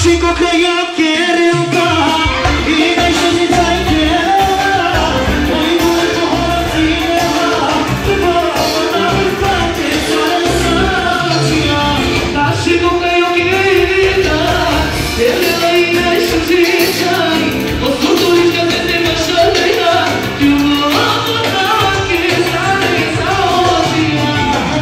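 Loud Balkan Romani wedding dance music: an amplified band with a man singing into a microphone, playing without a break.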